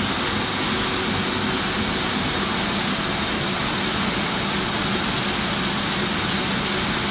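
Steady running noise of a multi-unit sheetfed offset printing press and its air supply: an even hiss over a low hum, with no clear rhythm or change.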